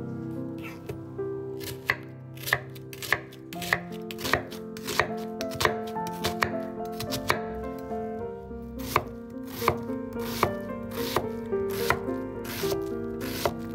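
A chef's knife cutting through an onion onto a thick wooden cutting board, in a steady run of crisp knife strikes a little under two a second. Background music plays throughout.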